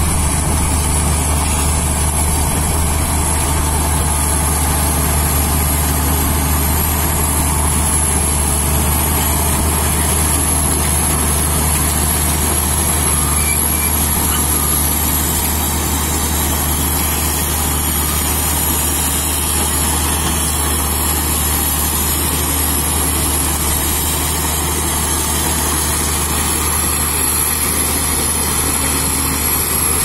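Shantui SD22 crawler bulldozer's diesel engine running steadily under load as the dozer pushes topsoil with its blade.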